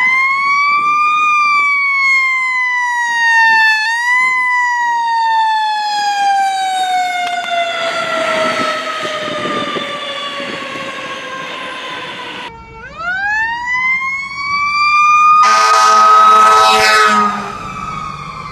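Fire truck siren sounding on a response. It rises and falls, then winds down in one long falling pitch. After a cut it winds back up, and a loud air-horn blast comes in near the end over the siren.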